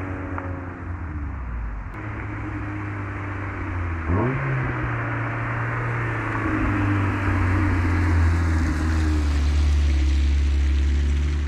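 1996 Mazda MX-5 Miata's 1.8-litre four-cylinder engine and exhaust on a drive-by. The engine note climbs sharply about four seconds in as the car accelerates, then runs steadily and grows louder as it passes close by.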